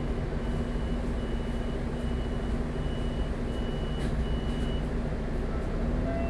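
Double-decker bus's diesel engine idling steadily, with a high electronic beep repeating about once every three-quarters of a second, seven times, stopping about two-thirds of the way through.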